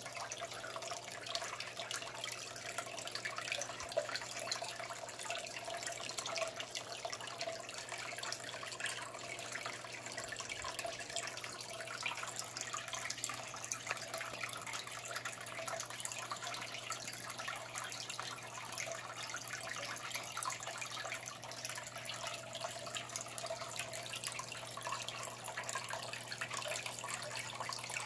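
Aquarium water trickling and bubbling steadily, with a low steady hum underneath.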